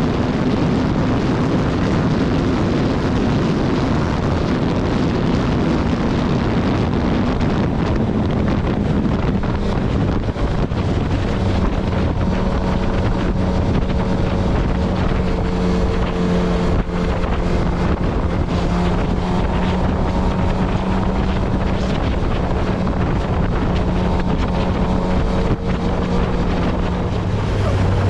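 Sportbike engine running at highway cruising speed, heard from the rider's seat under heavy wind rush on the microphone; partway through, the engine settles into a steady held note.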